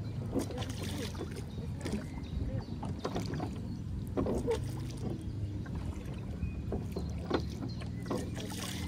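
Rowboat being rowed: wooden oars working in their oarlocks and dipping into the water, with irregular knocks and clunks over a low steady rumble.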